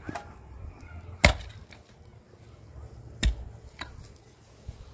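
A hand pick striking hard, stony soil while digging: three solid blows about two seconds apart, the middle one loudest, with a couple of lighter knocks of stone near the end.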